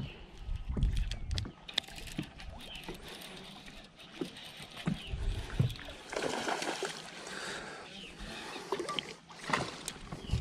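Water lapping and sloshing against a boat hull, with wind rumbling on the microphone for the first second or so and scattered small clicks and knocks. A louder rush of noise comes about six seconds in.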